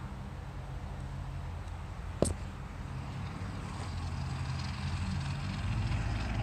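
Steady low hum of a motor vehicle engine running nearby, with one sharp click about two seconds in.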